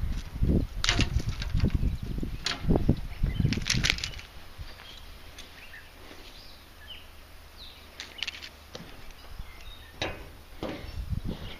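A bass flapping and thrashing while hung from a metal lip gripper over an aluminum boat: a burst of slaps and knocks for the first four seconds, then a few sharp clicks later on.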